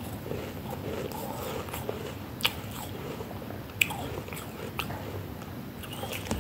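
A mouthful of flaky freezer frost being chewed, crunching steadily, with three sharper crunches about two and a half, four and five seconds in, the middle one the loudest.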